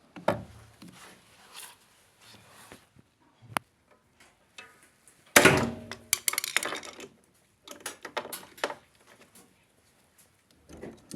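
Scattered knocks and clicks of hard objects being handled, with a loud clatter about five and a half seconds in followed by a quick run of rattling clicks.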